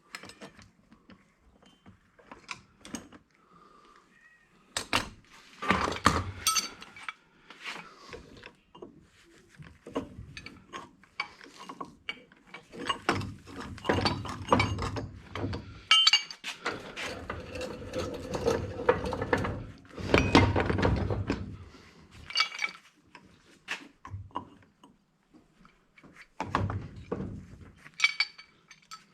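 Hand tools working on an old electric angle grinder to dismantle it: a run of metal clicks, clinks and knocks, with two longer stretches of rasping, rattling noise near the middle.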